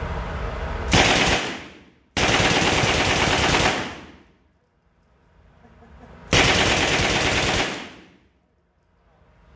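Full-auto Sten submachine gun firing 9mm in three bursts: a short one about a second in, then two long bursts of about a second and a half each. Each burst dies away in a brief echo.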